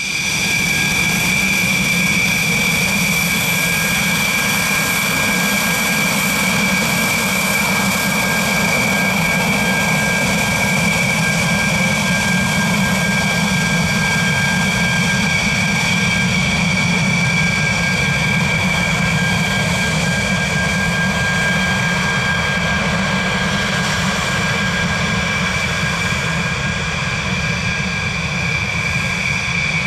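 Dassault Rafale M's twin Snecma M88 turbofans running steadily on the ground. A high-pitched whine sits over a low rumble, with no rise or fall in power.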